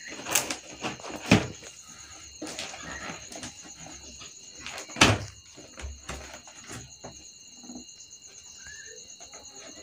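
Box cutter scraping and slicing along the sealed tape of a cardboard box, with handling noises of the cardboard; a sharp knock about a second in and another about five seconds in.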